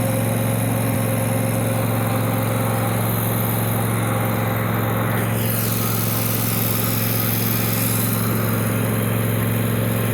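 Zero-turn riding mower's engine running steadily with a constant low hum.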